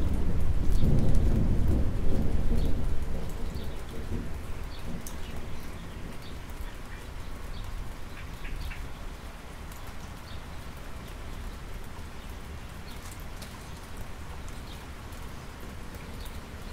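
Thunder rumbling low and loud over the first few seconds, dying away by about four seconds in, over steady rainfall on asphalt with scattered individual drips.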